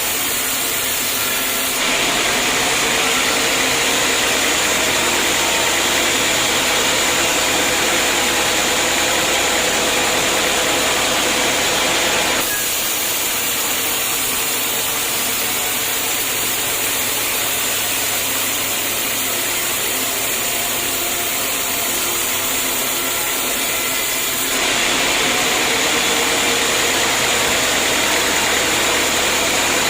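Homemade band sawmill running steadily and loudly. Its sound shifts abruptly three times: about two seconds in, near the middle, and a few seconds before the end.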